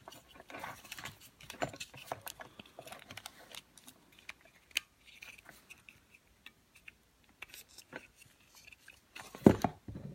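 Irregular small clicks and scrapes of hands working plastic ATV handlebar switch parts, pulling the on-off switch out of its housing, with a louder knock near the end.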